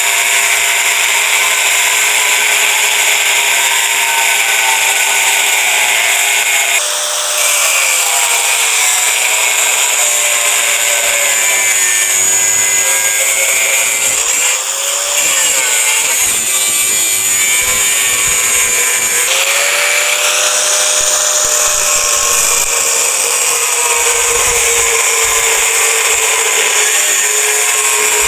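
Angle grinder with a cutting disc cutting through the steel shell of a refrigerator compressor: a steady high whine with harsh grinding, the motor's pitch sagging and recovering several times as the disc is pressed into the metal.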